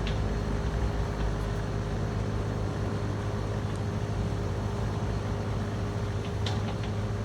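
Cat 305 mini excavator's diesel engine running steadily under work, with one brief sharp knock about six and a half seconds in.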